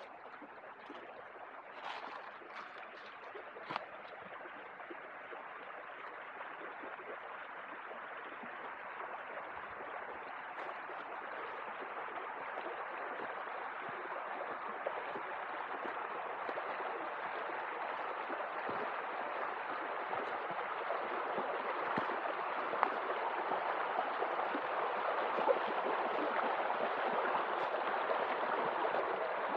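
Stream water running, a steady rushing that grows gradually louder, with a couple of faint clicks about two and four seconds in.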